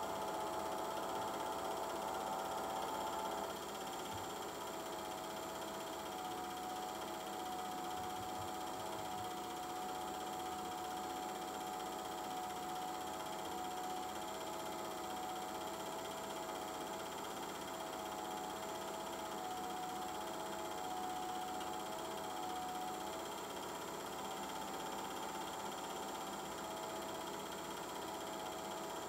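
Steady mechanical whirr and hum with a thin whine that wavers between two close pitches, typical of a film projector running while a silent home movie is transferred.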